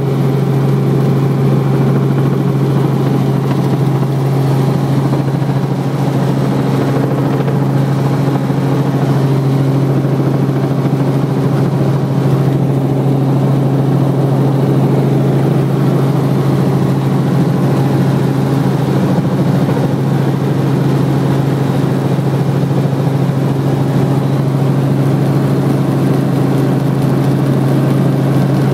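Helicopter rotor and engine noise heard inside the cabin during the approach to landing: a loud, steady drone with a strong low hum that holds unchanged throughout.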